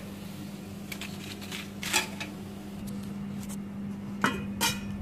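Metal cooking pots and utensils knocking and clinking as they are handled, a few separate sharp knocks, the loudest two near the end, over a steady low hum.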